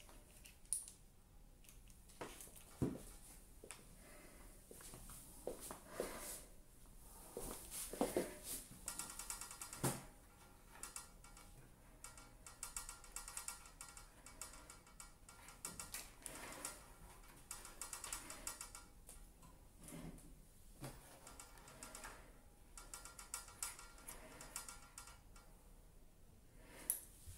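Faint clicks, knocks and rattles of hands handling an opened electric convector heater: its plug and cord, its casing and its control knobs. A faint steady buzz runs through the middle.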